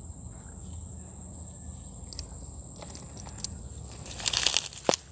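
Steady high-pitched insect drone of crickets over a low outdoor hum, with a few light clicks, then a short loud noisy burst about four seconds in and a sharp click just before the end.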